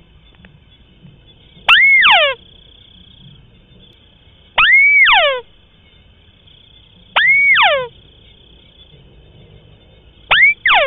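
White-browed crake calling, as played from a lure recording: a loud call repeated about every two and a half to three seconds, four times, with the start of a fifth at the end. Each call is a quick rising note that arches over, followed by a run of notes sliding down in pitch.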